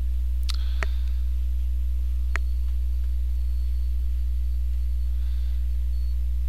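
Steady low electrical mains hum with a few overtones, picked up by the recording, with three short clicks in the first couple of seconds.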